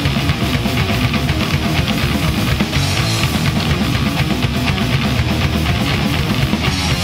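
Death metal band playing: heavy guitars over a fast, dense beat that runs without a break.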